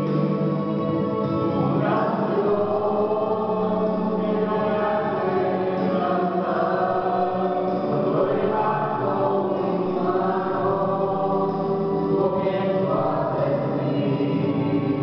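Two men and a woman singing a worship song together into microphones, in long held notes.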